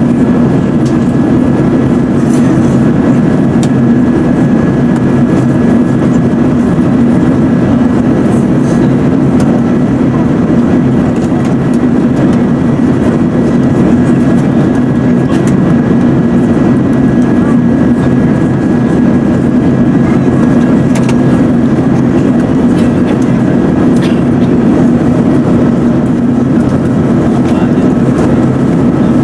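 Steady cabin noise inside an Airbus A380-842 during its descent: engine and airflow noise heard from a window seat, with a faint steady high tone above it.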